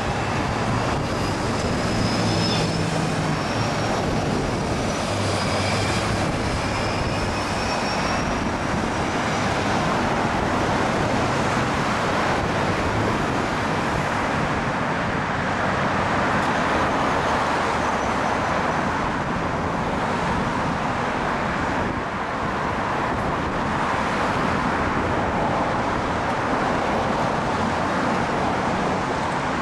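Road traffic on a busy city street: a steady rush of passing cars and trucks, with an engine hum and a faint high whine during the first third.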